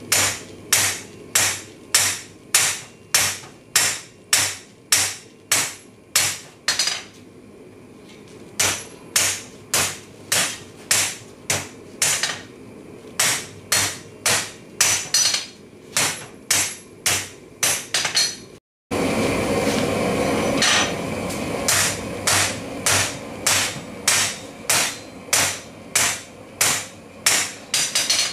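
Hand hammer striking red-hot rebar on a steel anvil, about two ringing blows a second, drawing the bar down to a square section. The blows pause briefly about seven seconds in; after a split-second dropout about two-thirds through, a steady rushing noise sits under the strikes.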